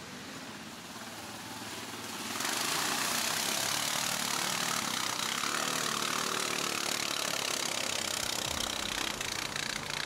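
Quad bike (ATV) engine running, getting much louder about two seconds in and staying loud.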